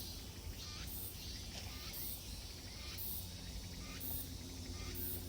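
Cicadas chorusing in a summer forest: a steady high buzzing drone, with a shriller pulse rising over it about once a second.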